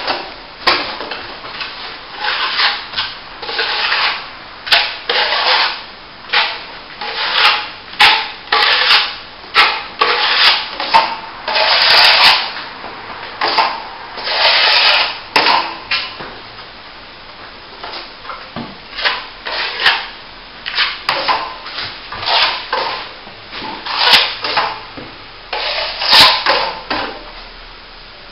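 Steel plastering trowel scraping across wet top-coat plaster in repeated strokes, about one or two a second, with a few sharp clicks among them.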